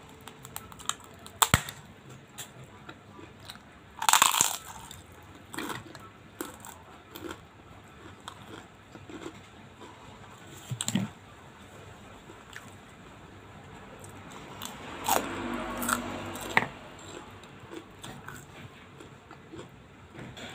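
Close-up eating sounds: kerupuk crackers crunched and chewed, eaten by hand with rice and sambal. Scattered sharp crunches, the loudest about four seconds in, with quieter chewing in between.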